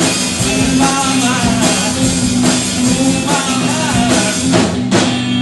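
Live rock band playing loud, with drum kit, electric guitar and a singing voice, closing the song with a final crash about five seconds in.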